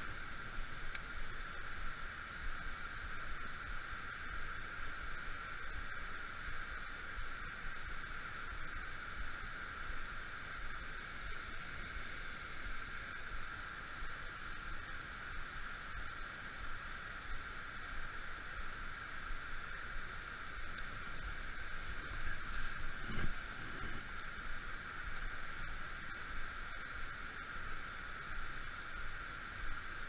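Steady evening insect chorus: an unbroken high-pitched drone over a faint low rumble, with a brief low bump about two-thirds of the way through.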